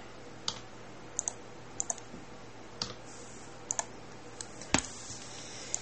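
Irregular clicks of computer keyboard keys and mouse buttons, about a dozen short taps, the sharpest a little past three-quarters of the way through, over a faint steady hiss.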